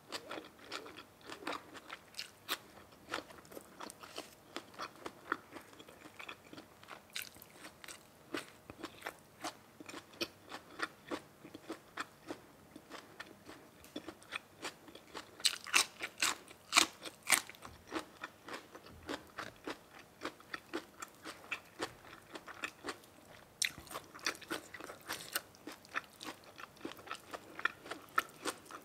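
A person chewing and biting crunchy food, with a steady run of crisp crunches. A few louder crunches come about halfway through.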